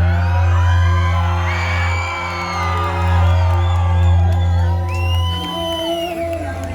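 Live rock band music with a held low bass note, while a crowd sings along and whoops over it; the bass drops out near the end.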